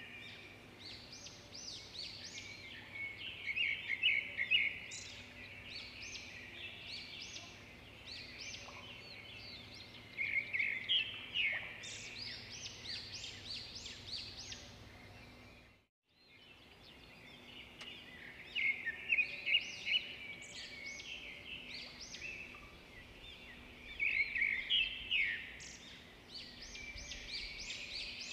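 Birds chirping and trilling in quick clusters over a faint steady hum. It breaks off for a moment about halfway, then resumes.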